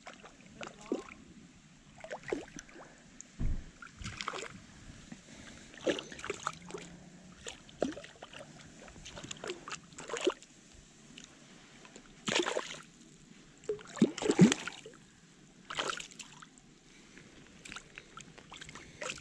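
Water splashing and sloshing in short, irregular bursts a second or two apart as a hooked fish thrashes in the shallows at the bank while being landed by hand. A single low thump about three and a half seconds in.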